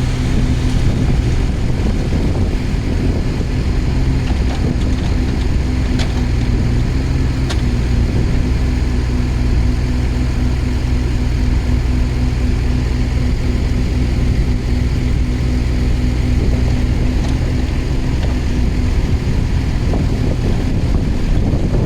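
Yanmar VIO20-4 mini excavator's diesel engine running steadily, with a couple of faint clicks about six and seven and a half seconds in.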